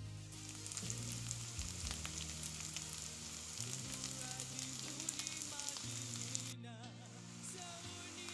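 Rice sizzling in hot oil as it is stirred and fried in a pan, with small scraping ticks from the stirring. The sizzle briefly drops out about two-thirds of the way through.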